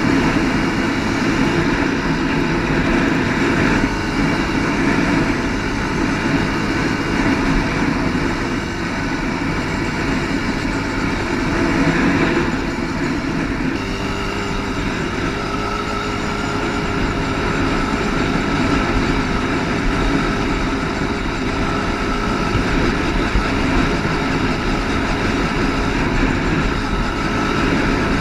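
ATV engine running continuously while the quad is ridden, its note shifting with the throttle and settling to a steadier pitch about halfway through.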